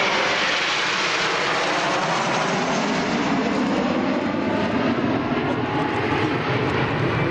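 Six Kawasaki T-4 jet trainers flying past overhead in close formation, the roar of their twin turbofan engines with a whine that falls in pitch as the formation passes and draws away.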